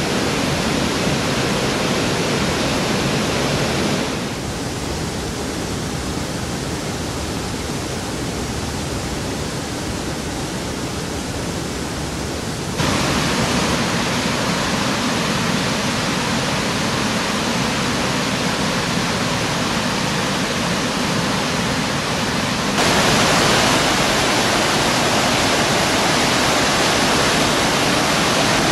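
Waterfall: a brook rushing down over rocks in a steady, unbroken rush of water. The level drops about four seconds in and comes back up twice later, near the middle and near the end.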